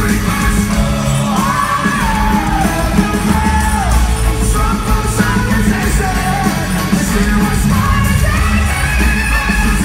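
Live rock band playing loudly through an arena PA, with sliding, held sung notes and yelling over the band.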